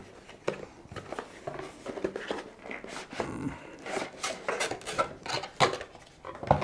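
Cardboard packaging and its paper wrapping handled by hand, rustling, scraping and knocking irregularly as the camera is slid out of its box, with a sharper knock near the end.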